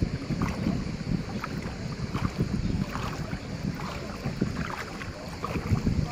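Wind rumbling on the microphone, with light splashing and sloshing of shallow sea water around wading legs.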